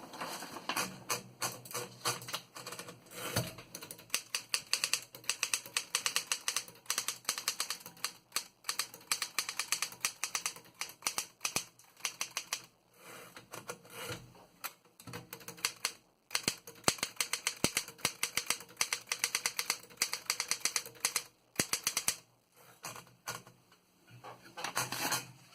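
1927 Smith Premier Model 60 desk typewriter being typed on: quick runs of key and type-bar strikes, several a second, broken by short pauses.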